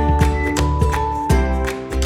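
Background music: an upbeat tune with plucked guitar over a steady beat and bass.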